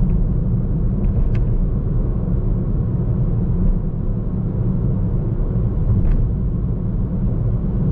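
Steady low rumble of a car driving, heard from inside the cabin: engine and tyre noise on the road, with two faint clicks about a second and a half and six seconds in.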